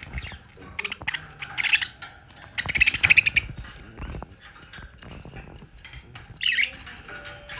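Budgerigar chattering in short, harsh bursts, the longest and loudest about three seconds in, with another brief call near the end, and faint light taps between.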